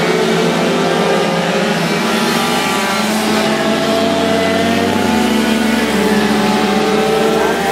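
A pack of 50 cc two-stroke racing mopeds (Mofas) running hard through a series of bends. Many high engine notes overlap, each rising and falling as the riders come off and back onto the throttle.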